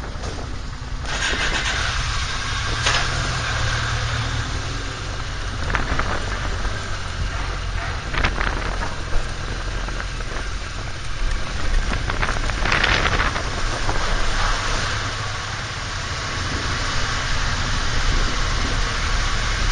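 Motorcycle engine running steadily under an even hiss of wind and road noise, with a few short knocks.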